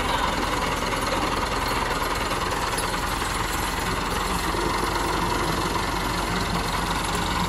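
Massey Ferguson 385 tractor's four-cylinder diesel engine running steadily as the tractor drives through the mud of a rice paddy.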